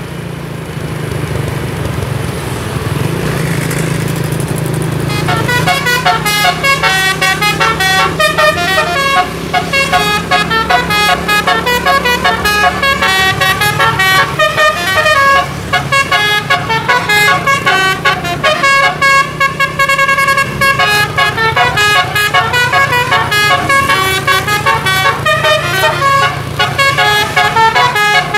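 Bus musical air horns (telolet) driven by a DAV horn module, playing a fast tune of many different notes over the low steady hum of the bus's engine; the tune starts about five seconds in.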